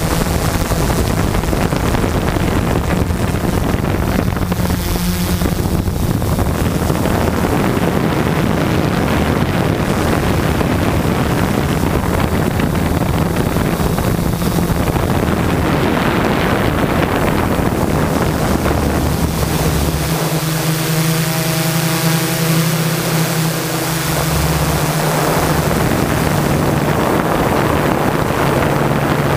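Quadcopter in flight, heard from the GoPro on board: its four MultiStar 2212 brushless motors and 12-inch carbon-fibre propellers give a steady pitched drone, with wind rushing over the microphone. The low rumble drops away for a few seconds about two-thirds of the way through, leaving the motor hum clearer.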